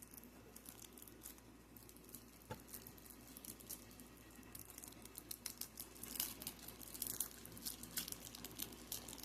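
Faint crinkling, rustling and tearing of packaging as it is handled and opened, a few scattered clicks at first and growing busier and louder in the second half.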